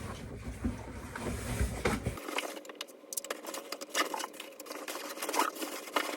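Small objects being handled and packed into a bag: scattered clicks, taps and rustling.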